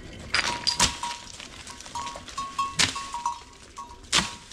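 A small livestock bell on the sheep and goats clinks on and off at one steady pitch. Four sharp knocks or cracks stand out, two close together near the start, one near the middle and one near the end.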